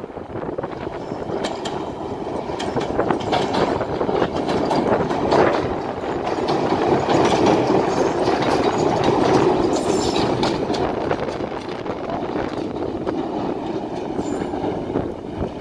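Island Line Class 483 electric train, converted 1938 London tube stock, running past on the pier track with its wheels clicking over the rail joints. The sound builds to its loudest a little past halfway as the cars go by, then eases as the train moves away.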